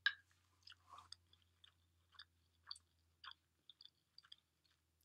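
A person chewing a mouthful of firm cooked spelt hot cereal: a faint run of short, irregular mouth clicks, about two a second.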